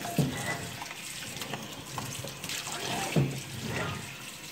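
Kitchen tap running onto a cast iron ribbed grill pan in a stainless steel sink, rinsing the soap suds off it. Two dull knocks, the louder one about three seconds in, as the pan is handled in the sink.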